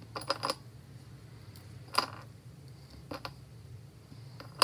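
A few light clicks and taps from hands setting chocolate pieces onto pastry squares on a foil-lined metal baking tray, with a sharper click at the very end, over a low steady hum.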